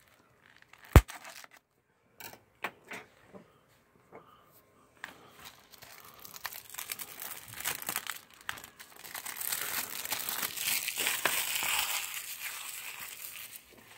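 A sharp knock about a second in and a few small clicks, then the cellophane shrink-wrap on a DVD case crinkling steadily as it is torn off and crumpled, loudest near the end before fading.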